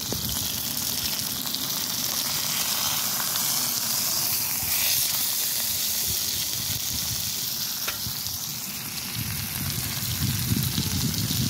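Burger patties sizzling in a frying pan on a portable gas camp stove, a steady hiss with a single light click about eight seconds in.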